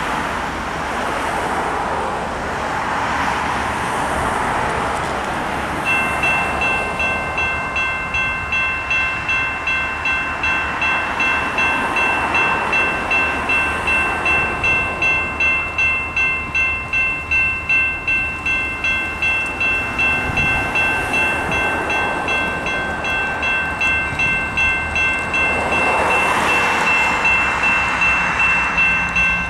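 Railroad grade-crossing warning bell starts ringing about six seconds in, steady even strokes that signal an approaching train; before it, a rushing hiss of rain and wet street.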